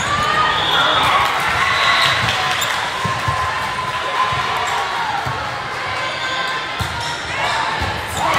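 Indoor volleyball play on a hardwood court: repeated dull thumps of ball contacts and footfalls, and sneakers squeaking, with players' calls and crowd chatter echoing in a large gym.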